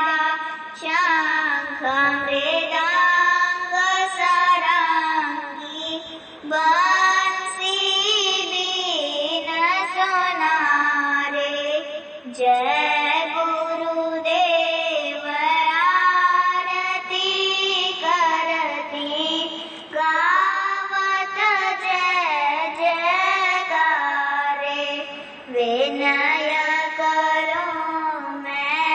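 A young girl singing a Hindi devotional prayer to Jaigurudev solo, in long melodic phrases with short pauses for breath between them.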